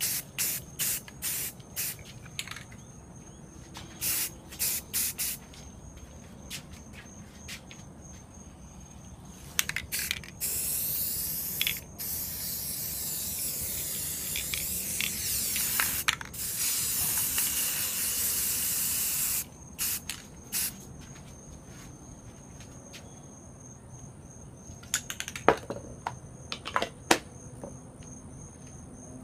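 Spray paint can hissing in short bursts, then in one long spray of about nine seconds from about ten seconds in, then short bursts again. A few sharp knocks near the end.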